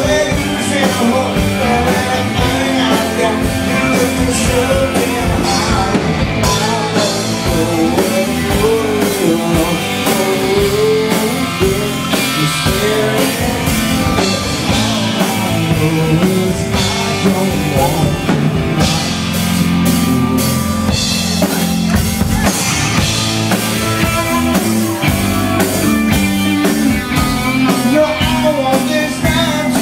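Live country-rock band playing: electric guitar through a Marshall amp, bass guitar and drum kit, with singing.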